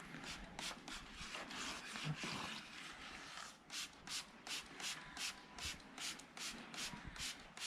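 Rubbing strokes on a surface: uneven scraping for the first few seconds, then steady back-and-forth strokes about three a second.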